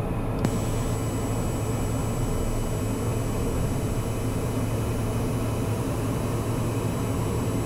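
Socata TBM 910's Pratt & Whitney PT6A turboprop engine and propeller running steadily, heard inside the cockpit: a low drone with a thin steady high turbine whine over it.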